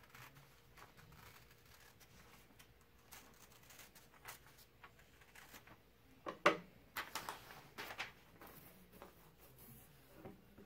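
Scissors cutting through a sheet of lined notebook paper, with faint snips and paper rustling, and a sharper knock about two-thirds of the way through, followed by a few light clicks.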